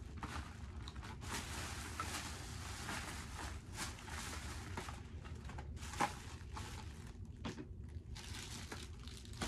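Plastic shopping bag crinkling and rustling as items are dug out of it, in irregular bursts, with a sharp knock about six seconds in.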